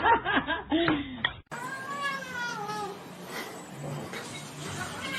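A domestic cat's long, drawn-out meow that falls slowly in pitch, with another meow starting near the end.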